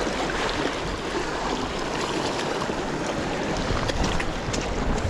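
Sea waves breaking and washing over rocks in the shallows, a steady rushing hiss, with a few faint ticks near the end.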